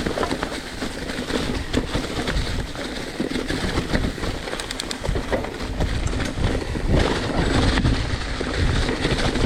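Mountain bike being ridden over rough ground: steady rumble and rattle of tyres and frame, with scattered knocks and wind buffeting the helmet or handlebar microphone.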